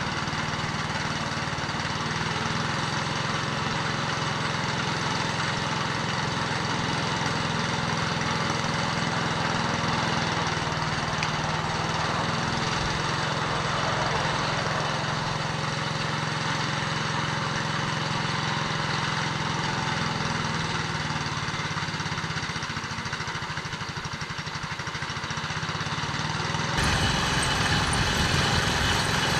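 An engine running steadily, with an even mechanical hum. About 27 seconds in, the sound changes abruptly and gets a little louder.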